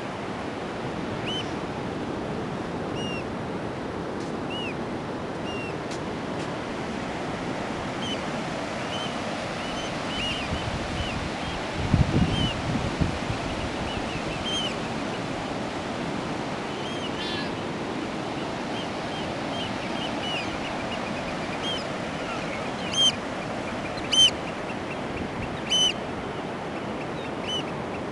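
Steady surf breaking on a sandy beach, with birds at the water's edge giving many short, high calls and a few louder ones near the end. A brief low rumble comes about twelve seconds in.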